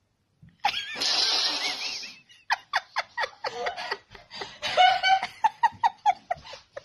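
A loud, breathy yell lasting over a second as a person plunges into deep snow, followed by a run of short bursts of laughter.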